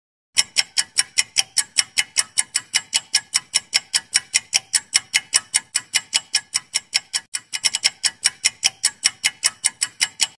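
Ticking clock sound effect marking the answer timer, about four sharp ticks a second, with a brief uneven stutter about seven and a half seconds in.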